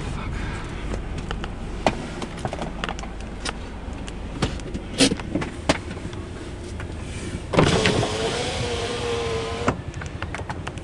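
Inside a car, a low steady engine and cabin rumble with a few sharp clicks and knocks, then an electric power window motor whines for about two seconds, a bit past the middle.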